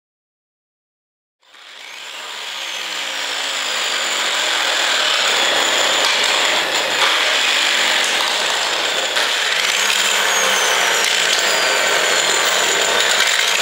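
Handheld angle grinder running against a church bell, machining and cleaning the metal around the repaired crack. It starts after about a second and a half of silence, swells in and holds steady, with high whining tones that slide in pitch over the grinding noise.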